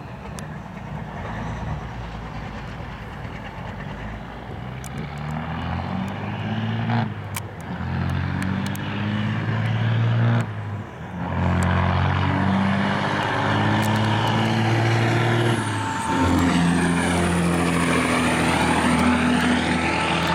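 Diesel semi truck accelerating hard down a drag strip. The engine's pitch climbs and drops back with each of a string of gear shifts, and it grows louder as the truck passes. A high whine rides over it in the second half.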